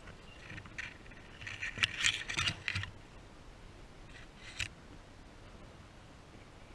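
Brief rustling and crackling in dry grass and dead leaves, in a few short irregular bursts. The loudest comes about two seconds in and a shorter one follows a couple of seconds later.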